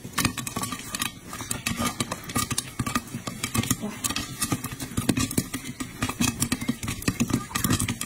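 Popcorn kernels popping in a covered pot: many quick, irregular pops in a steady stream.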